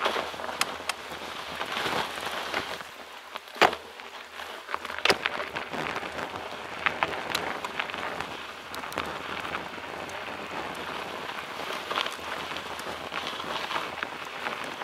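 Mountain bike tyres crunching and hissing over a snow-covered dirt road, with scattered sharp clicks and knocks from the bikes going over bumps; the loudest knocks come about three and a half and five seconds in.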